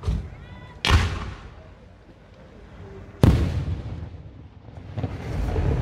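Aerial fireworks shells bursting: loud bangs at the start, about a second in and just over three seconds in, each trailing off over about a second, then more bursts building up near the end.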